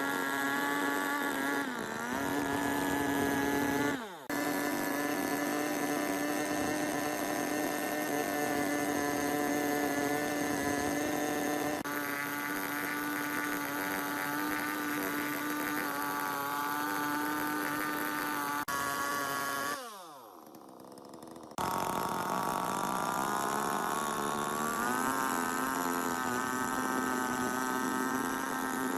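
A power tool's motor running at a steady high whine, winding down in a falling pitch about four seconds in and cutting back in, then winding down again near twenty seconds and starting up sharply a moment later.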